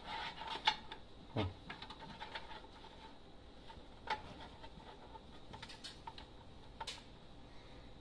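Scattered light clicks and taps from small parts being handled and connectors being worked at a CCTV recorder and its power supplies, a few sharper clicks spread through, over a faint steady high electronic tone.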